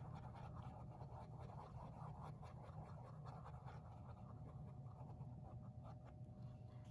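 Faint, irregular scratchy strokes of a small paintbrush mixing paint on a paper-plate palette, over a low steady hum.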